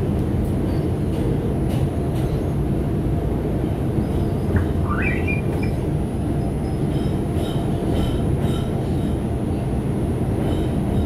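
Bombardier R142 subway car running between stations, heard from on board: a steady loud rumble of wheels on rail. A short wheel squeal rises in pitch about halfway through, and fainter high squeals come and go near the end.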